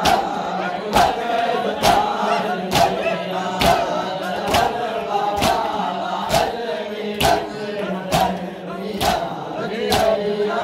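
A crowd of men chanting a noha, a Shia lament, in unison. Sharp claps of chest-beating (matam) land together at a steady pace of about one a second.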